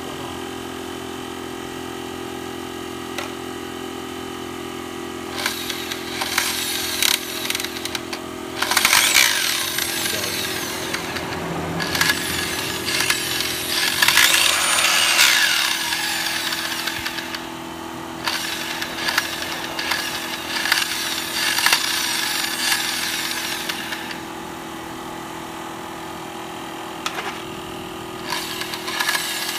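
Makita benchtop circular saw (miter saw) motor running steadily, with a long stretch of louder, uneven grinding and clattering noise in the middle that later dies back to the steady run. It is making an abnormal noise, which the owner takes for something inside hitting or rubbing.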